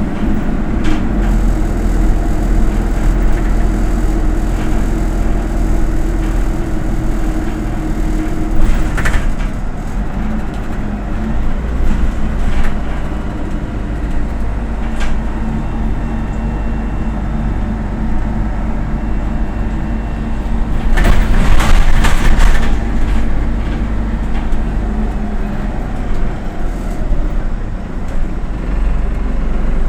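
Autosan Sancity M09LE city bus under way: a steady engine drone with road noise and rattles, the engine note changing about nine seconds in. A louder burst of noise lasting about two seconds comes past the middle.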